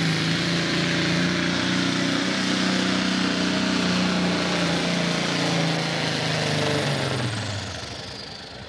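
Pro Stock pulling tractor's turbocharged diesel engine running hard under load with a steady deep drone. About seven seconds in the engine drops off and the turbocharger whine falls in pitch as the pull ends.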